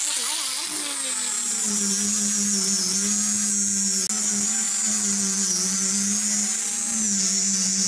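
Electric angle grinder with a sanding disc, running steadily as it sands a wooden board. Its pitch drops over about the first second and a half, then holds as a steady hum with a high whine.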